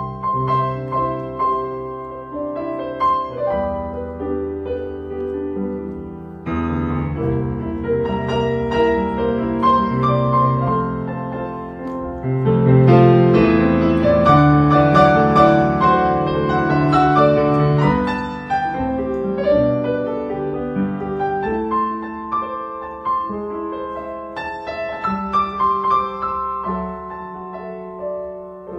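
Background piano music: a melodic piece that swells fuller and louder in the middle and eases back near the end.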